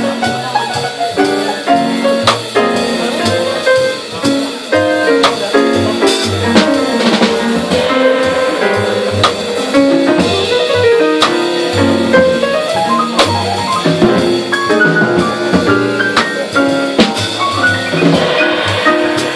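Live small-group jazz: a walking double bass line, piano notes and a drum kit played with sticks, cymbals struck on a steady beat.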